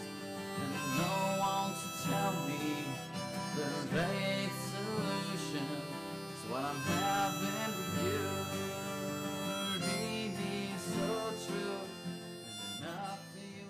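Background music: a harmonica melody over guitar accompaniment.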